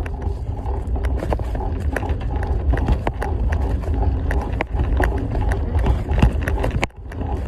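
Handling noise from a phone microphone carried on a moving bicycle: a steady low rumble with irregular clicks and knocks as the phone rubs and bumps, dropping briefly near the end.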